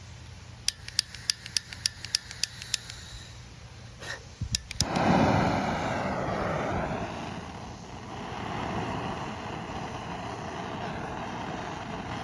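Handheld gas torch being lit: its igniter clicks about four times a second without catching, clicks a few more times about four and a half seconds in, then the flame lights suddenly and hisses steadily, ready to heat a soldered wire splice.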